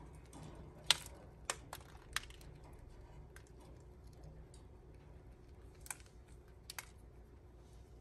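Budgerigars pecking and cracking seeds off a seed cookie held in a hand: sharp, irregular beak clicks, four in the first couple of seconds and two more near the end, with fainter ticks between.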